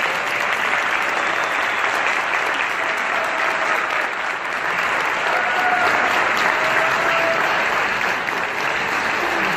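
Large audience applauding steadily, with a few faint voices calling out midway.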